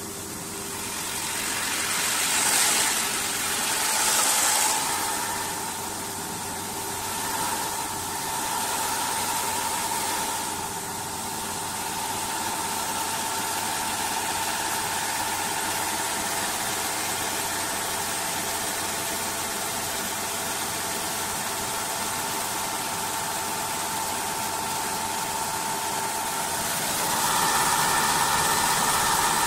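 Automatic CNC wood-turning lathe running, with a steady machine whine. Two short hissy surges come a few seconds in, and the whine grows louder, with more tones in it, near the end.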